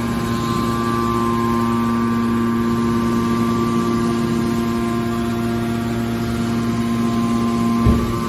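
Hydraulic can baler's power unit running with a steady hum and whine, and a single low thump near the end.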